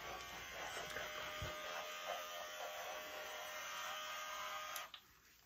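Small battery-powered motor and pump of a duck-shaped pet-bath foam dispenser running with a steady hum as it pumps out lather. It cuts off near the end.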